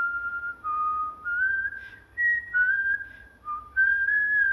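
A person whistling a short tune by mouth: clear single notes, about eight of them, each held about half a second, stepping up and down in pitch with short breaks and small slides between some notes.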